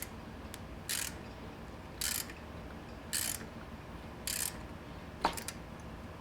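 Ratchet wrench clicking in short runs about once a second, tightening a threaded plug into an engine block, with one sharp click about five seconds in.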